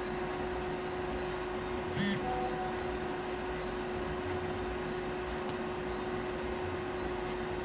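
Steady background hiss with a constant hum and a faint high whine, and one short click about two seconds in.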